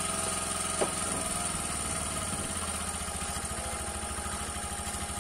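A small engine aboard a fishing boat running steadily at idle, with an even low pulse. There is one light knock a little under a second in.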